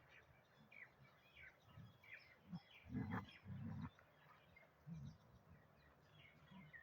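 Faint chirping of birds in the background, with two short low rumbling sounds close together about three seconds in.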